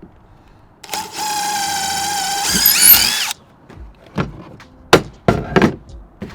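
Cordless drill running for about two and a half seconds as it bores through plywood, its motor whine climbing in pitch just before it stops suddenly. Then a few sharp knocks and clicks.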